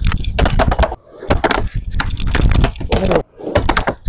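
Skateboard wheels rolling on a plywood quarter pipe, broken by sharp clacks and slaps of the board hitting the ramp during blunt kickflip attempts. The rolling stops abruptly about a second in and again near the end, then picks up again with the next attempt.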